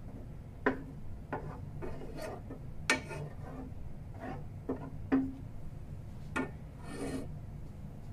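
Wooden spoon scraping and tapping against a non-stick frying pan while stirring semolina in ghee: irregular short knocks and brief scrapes over a low steady hum.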